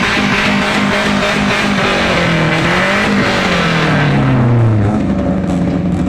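Loud, continuous vehicle noise, with engine-like pitches rising and falling; the loudest low tone falls away and stops about five seconds in.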